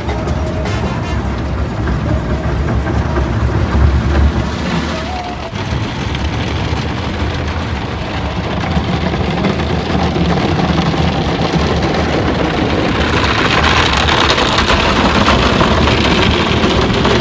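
Automatic car wash heard from inside the car: water and rotating brushes beating on the body and windows over a steady low rumble. The spray grows louder and hissier about thirteen seconds in.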